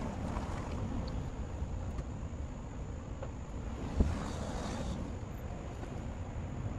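Wind buffeting the microphone in a steady low rumble, with a single sharp thump about four seconds in.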